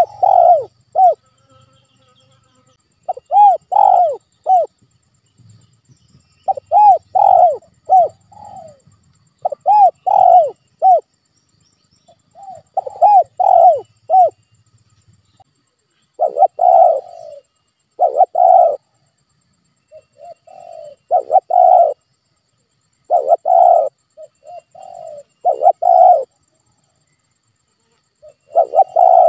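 Spotted dove cooing: its song repeated over and over, each phrase three or four arched coos, one phrase every two to three seconds.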